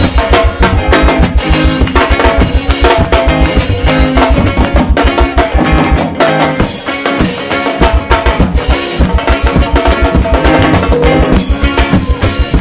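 Gospel church band music, drum kit and bass playing a steady driving beat of about four low beats a second. The bass and kick drop out for about a second and a half near the middle, then the beat comes back in.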